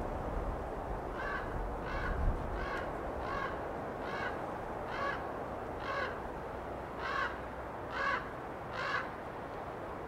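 Common raven calling a series of about ten short caws, roughly one every 0.8 seconds, the last few the loudest, over the steady rush of wind in pine trees.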